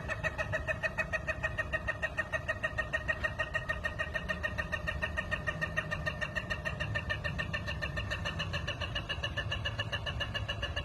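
Ayam Ketawa (Indonesian laughing chicken) giving its long laughing crow: a rapid run of short, even-pitched chuckling notes, about four or five a second, that keeps going without a break.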